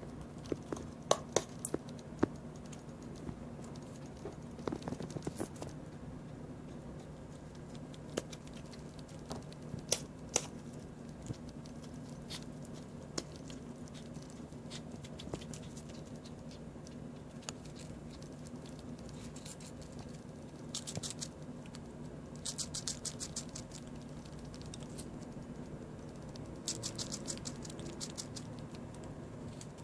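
Pet squirrel nibbling and gnawing at food: scattered sharp clicks and scratches, with several short runs of rapid high ticks near the middle and end. A steady low hum runs underneath.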